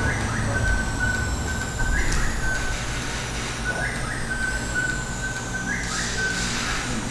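A high whistle-like note repeating about every two seconds. Each one is a short upward slide into a held steady tone, over a low steady rumble.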